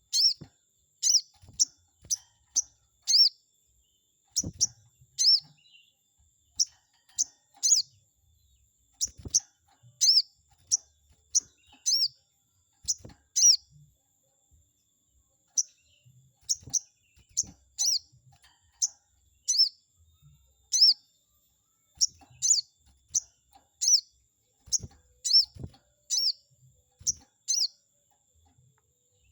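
Sogon bird (sogok ontong, the little spiderhunter) calling a run of short, sharp, high-pitched chirps, about one to two a second, breaking off briefly now and then. A few faint low thumps come through underneath.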